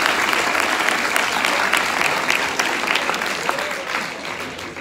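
Audience applause in a lecture hall, dense clapping that thins out and fades in the last second or so.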